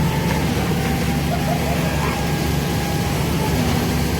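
Large diesel engine running steadily at an even pitch, a constant low hum with a faint steady whine above it, typical of heavy concrete-pouring machinery.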